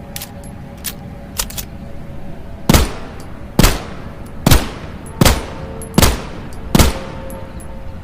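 P38 pistol gunshot sound effect: a few faint clicks, then six loud single shots fired at a steady pace a little under a second apart, each with a short ringing tail.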